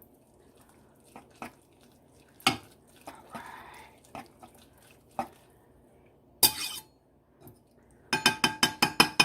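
Utensil knocking and clinking against a cooking pot of ramen noodles, with scattered light knocks, then a quick run of about eight ringing metallic clinks near the end.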